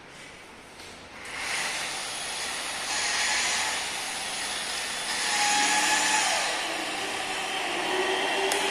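Stanley SP 137 rotary car polisher's electric motor starting up about a second in and running with a whirring hiss, its level rising and falling as it works.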